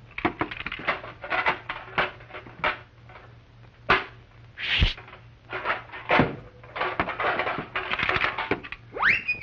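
Cartoon sound effects: a quick run of short scratchy, rustling strokes with a few sharp knocks, a falling swoop about five seconds in, and a rising whistle-like glide near the end.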